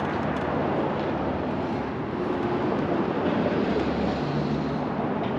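Steady rumble of street traffic, with a faint engine hum in the middle.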